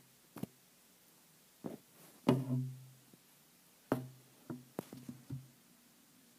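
Several irregular knocks and taps on a hard surface, several of them followed by a brief low ringing hum; the loudest comes about two seconds in.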